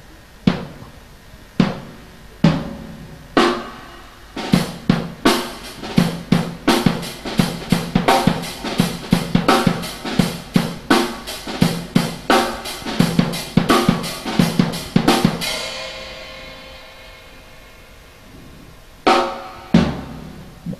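Acoustic drum kit handmade by South Mountain Drum Craft (SMDC), played unamplified with the microphones switched off. A few spaced single hits lead into a fast, dense run of strokes across drums and cymbals. It ends on a cymbal that rings out slowly, and two last hits come near the end.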